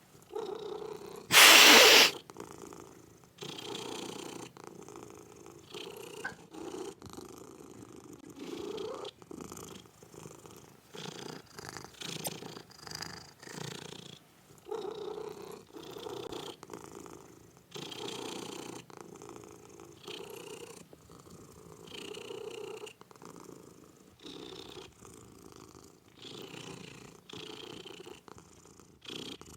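Kitten purring in a string of rough pulses, each lasting about a second. A loud, brief burst of sound comes about a second and a half in.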